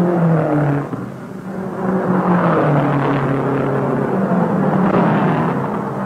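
Racing car engines at speed, swelling loud twice as cars go by, the engine note dropping in pitch as the first one passes about a second in.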